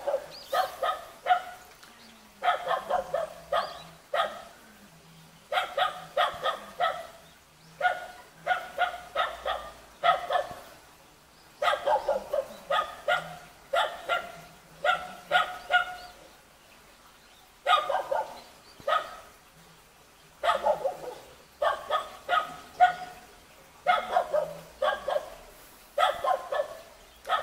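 Young Jindo dog barking in quick runs of three to six sharp barks, with a pause of about a second between runs.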